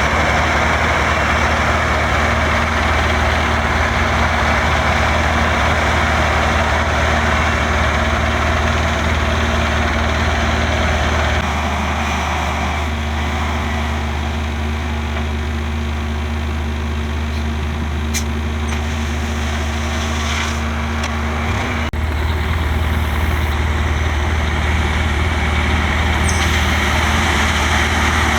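Heavy diesel engine of earth-moving equipment running steadily, easing off about eleven seconds in and coming back up about ten seconds later.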